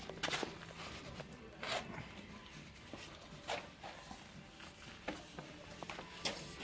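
Quiet room tone with a few faint, scattered light taps and clicks, like small handling noises.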